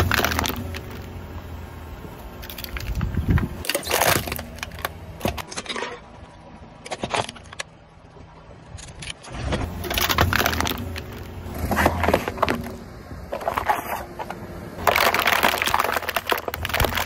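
A car tyre rolling slowly over objects on asphalt and crushing them, a metal drink can and a clear plastic container among them, with crunching, crackling and crinkling in several separate bursts.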